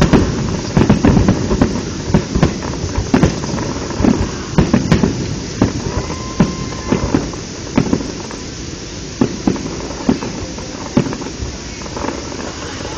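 Aerial firework shells bursting in a rapid series of bangs over a continuous rumble. The bangs grow sparser and quieter after about eight seconds.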